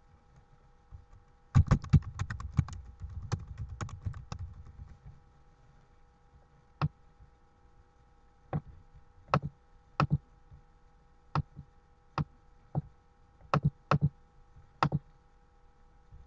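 Computer keyboard typing: a quick burst of keystrokes about two seconds in, then single clicks every second or so. A faint steady hum runs underneath.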